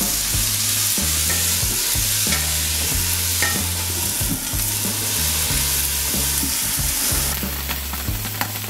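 Diced potatoes frying on a hot Blackstone flat-top griddle, with water squirted from a squeeze bottle hissing into steam on the hot steel. It is a steady, loud sizzle that eases a little near the end.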